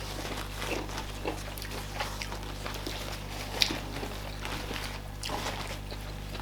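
Close-up eating sounds: wet chewing and smacking of fufu and banga soup with meat, with scattered short mouth clicks, one sharper click about three and a half seconds in, over a low steady hum.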